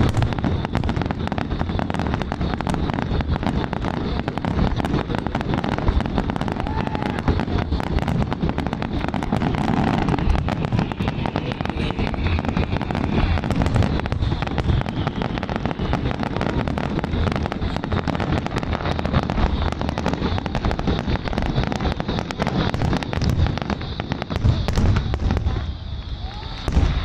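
Aerial fireworks display with many shells bursting at once: a dense, continuous run of booms and crackling that eases off near the end.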